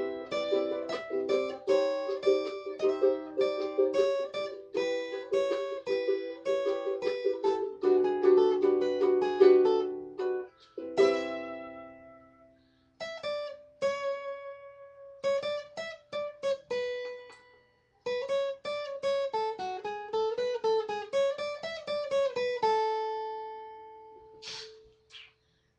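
A plucked string instrument picking a quick melody note by note, with two short pauses, ending on a held note that rings out and fades.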